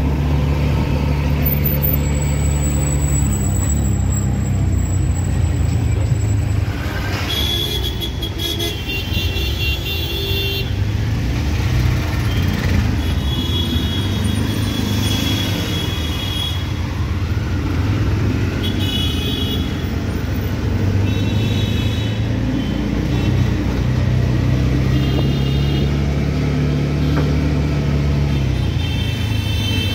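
Auto-rickshaw engine running steadily, heard from inside the open passenger cabin amid road traffic. Vehicle horns toot several times, the first about eight seconds in.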